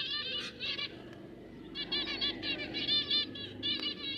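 Finch chicks giving rapid, high, overlapping begging chirps in bursts, with a pause of about a second just before the middle.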